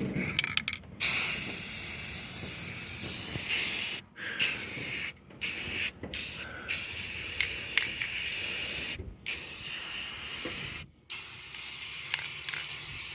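Paint being sprayed blue onto a boat bottom: a steady hiss of spray in long stretches, cut off by brief stops several times.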